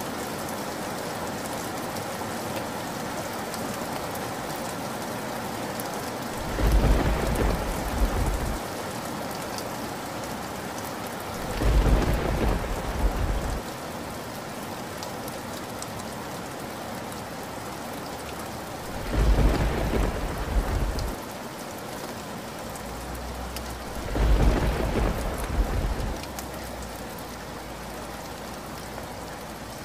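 Steady rain falling throughout, with four loud rolls of thunder a few seconds apart, each lasting about two seconds.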